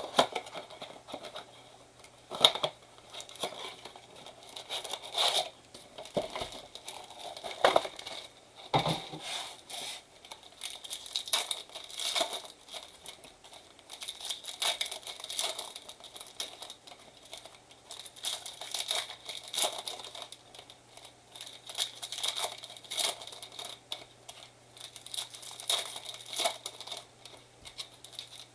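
2023 Bowman blaster box and its trading-card pack wrappers being torn open and crinkled by hand, in irregular tearing and crackling strokes with a few louder rips.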